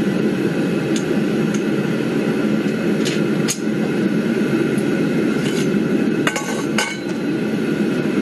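Gas-fired melting furnace's burner running with a steady roaring hiss. Over it come several sharp metal clinks from a steel T-bar knocking against the furnace lid, with a short cluster of clanks about six seconds in as the bar is set down.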